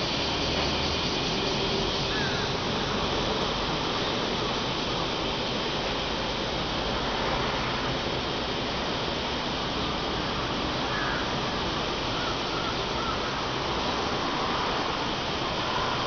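Dense summer cicada chorus, a steady hiss-like drone, with crows cawing a few times in the second half over a low traffic rumble.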